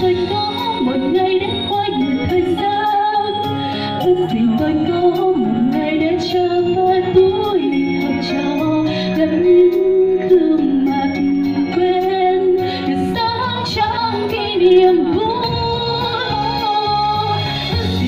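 A woman singing a Vietnamese song into a microphone over a backing track with a steady beat, amplified through stage loudspeakers.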